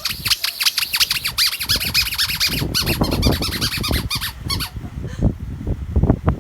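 A squeaky dog toy squeaked over and over in quick succession, about five high squeaks a second, as a puppy chews it, stopping about four and a half seconds in. Soft knocks and rustling sit underneath.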